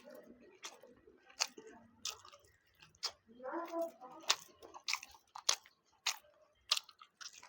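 Close-miked chewing of a mouthful of food, with sharp wet mouth clicks and smacks coming roughly every half second to second.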